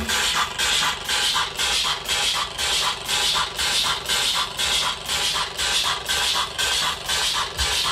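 Live industrial electronic music from drum machines and synthesizers: a loop of harsh, noisy, mechanical-sounding clattering hits with a pulse about once a second. The low bass line drops out right at the start, leaving the noise rhythm on its own.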